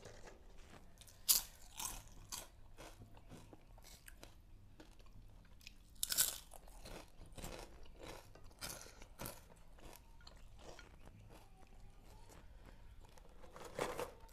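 Close-up eating sounds: crunching and chewing of fried food, with sharp crisp bites scattered through, the loudest about a second in, around six seconds in and near the end.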